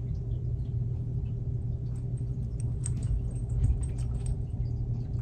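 Steady low hum of room noise, with a few faint clicks and mouth sounds through the middle as a hot latte is sipped and swallowed from a paper cup.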